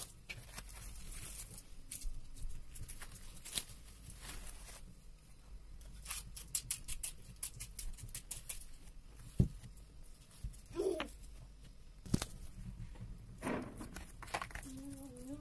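Plastic cling film crinkling and crackling as it is handled over a bowl of risen yeast dough, with hands pressing and knocking down the dough. A single sharp knock about nine seconds in.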